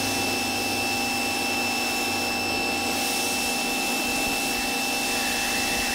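Pressure washer running with a steady motor whine over the hiss of its spray. It cuts in and cuts off abruptly.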